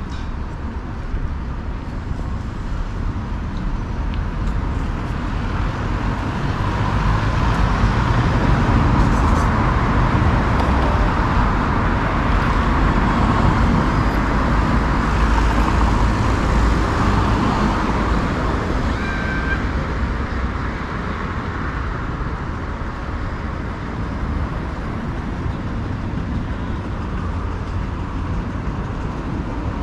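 Road traffic running steadily alongside, swelling to its loudest in the middle as vehicles pass close by, then easing off.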